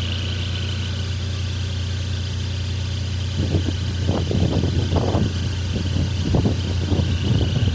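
Toyota 5VZ V6 engine running at a steady speed with a constant high whistle from the timing-belt area. From about three and a half seconds in, irregular bumps and rustles join it.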